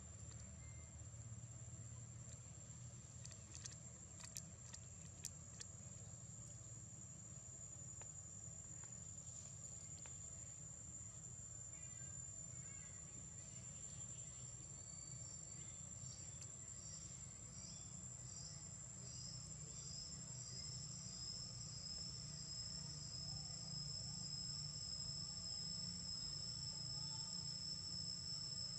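Insects shrilling steadily in one high, thin tone, with a second high, wavering call joining about halfway through and growing louder toward the end. A few faint clicks in the first several seconds, over a low background rumble.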